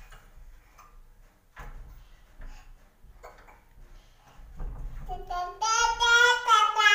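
A toddler's high-pitched, wavering sing-song vocalizing starts about five seconds in and is the loudest sound, after a few faint thumps of his hand patting the wall and door.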